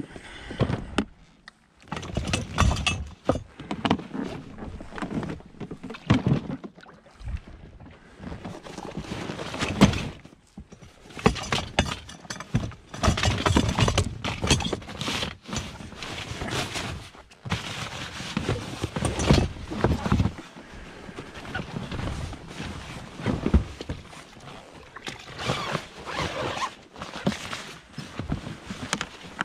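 Hands handling a large nylon outboard bag on an inflatable boat: rustling and dragging fabric with irregular knocks and thunks.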